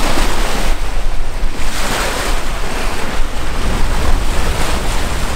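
Sea rushing and splashing along the hull of a sailboat under sail, with wind buffeting the microphone as a heavy low rumble.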